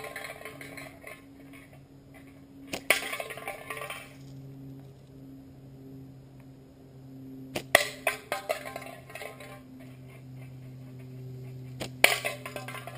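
Three slingshot shots about five seconds apart from a flat-band pickle-fork slingshot firing marbles: each a sharp snap followed by about a second of quick, fading clicks and clatter.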